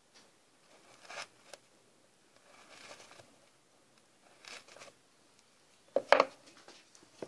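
Small Swiss-made carving gouge paring softwood in a few brief, separate cutting and scraping strokes. A louder knock about six seconds in.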